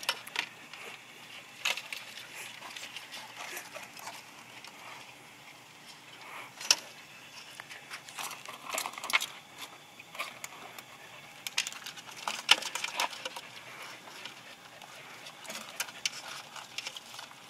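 Scattered light clicks and rattles of live blue crabs' shells and claws knocking together in a wooden bushel basket, with sharper clicks about seven seconds in and again around twelve to thirteen seconds.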